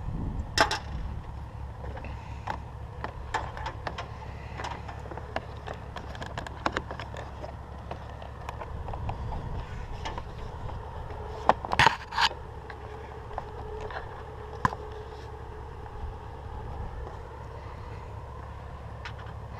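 Irregular clicks, knocks and scrapes over a steady low rumble, with a cluster of louder knocks about twelve seconds in.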